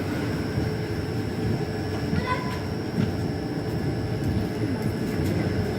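Passenger train running along the track: steady rumble of wheels on rails.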